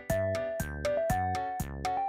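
Background music: a light synthesizer tune with a steady beat and a simple melody of held notes.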